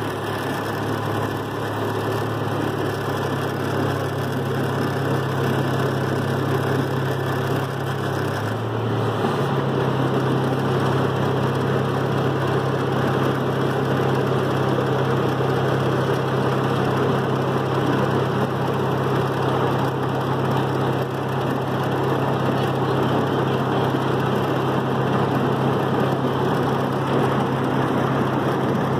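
Small engine of a miniature park train's locomotive running steadily as the train travels along the track: a low hum over a broad rushing noise. The engine note shifts a little about eight or nine seconds in.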